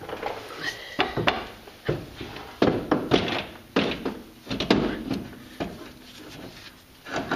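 A metal power steering gearbox clunking and knocking against the frame and its mounting bolts as it is worked into place by hand, in irregular knocks with some scraping between them.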